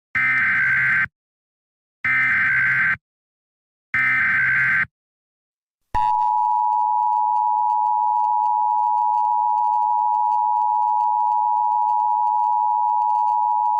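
Three Emergency Alert System SAME header data bursts, each about a second long with a second's gap between them, followed about six seconds in by the EAS two-tone attention signal (853 and 960 Hz), held steady for the rest.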